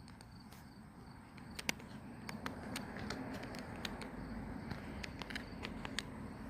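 Faint outdoor ambience: crickets trilling steadily and high, under a low rushing noise that swells a little partway through, with scattered light ticks.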